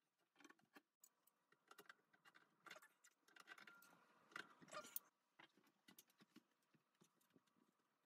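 Near silence, broken by a few faint clicks and taps of hands working the wire terminals on a tankless water heater's heating cylinders, the loudest a little past the middle.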